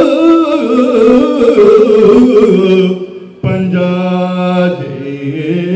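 A man singing a Kannada verse in bhamini shatpadi metre into a microphone, in slow, ornamented held notes. The voice falls away about three seconds in and starts again on a long, steady low note.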